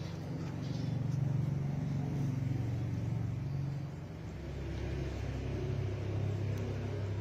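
Low, steady rumble of a running motor, its pitch dropping a little about four seconds in.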